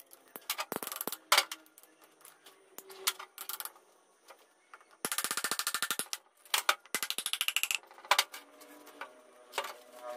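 Piston installation on a Mitsubishi 4D56 diesel block: the metal ring compressor around the ringed piston is worked with a hand tool, with scattered clicks and two runs of rapid, evenly spaced clicking lasting about a second each, plus separate knocks as the piston is tapped into the cylinder bore with a wooden hammer handle.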